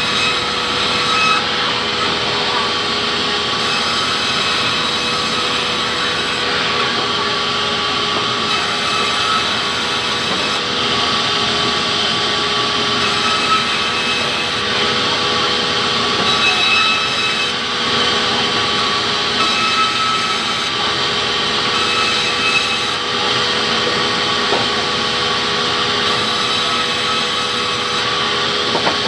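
Sawmill band saw running and ripping a hardwood log into planks: a loud, steady noise with a constant whine.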